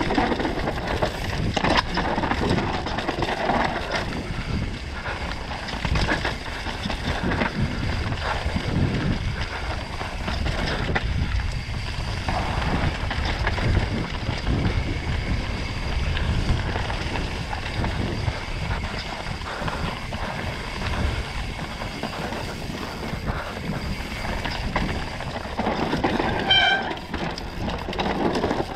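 Mountain bike descending a rough dirt trail at speed: tyres rumbling over dirt and rocks with constant knocks and rattles from the bike, and wind on the action-camera microphone. A brief high tone sounds about two seconds before the end.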